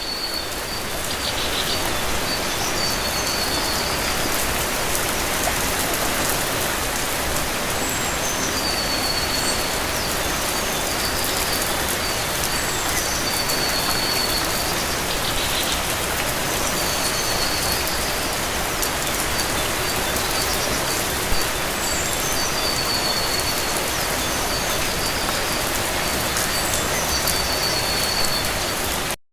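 Steady heavy rain falling, a constant even hiss and patter. A bird sings short high whistled phrases over it every few seconds.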